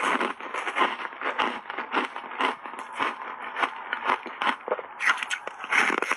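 Crunchy foam reshape ice coated in thick matcha powder being bitten and chewed: a dense, unbroken run of crisp crackling crunches.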